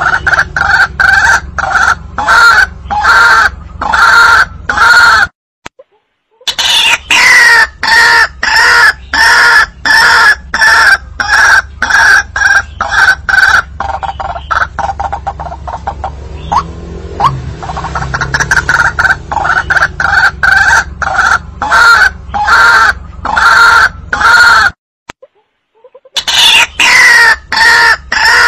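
White-breasted waterhen (ruak-ruak) calling: a long, loud run of repeated call notes, about three a second. It breaks off twice for about a second, and each time it restarts with a falling note. This is a recorded lure call used to draw waterhens out of cover.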